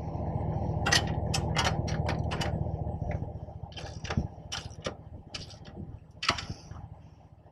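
Sharp, irregular metal clicks and clanks of hand tools working on boat-trailer latch hardware, about twenty in all, over a steady low hum that is loudest in the first three seconds and then fades.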